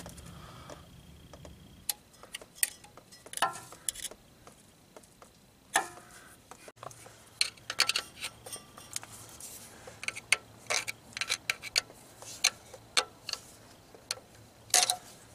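Irregular light metallic clicks and scrapes, some in quick clusters, from a screwdriver prying the old filter seal out of its bore in an automatic transmission case.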